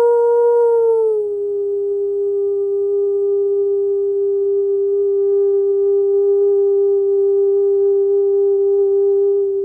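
A sustained, nearly pure sound-healing tone that steps down slightly in pitch about a second in, then holds steady with faint overtones.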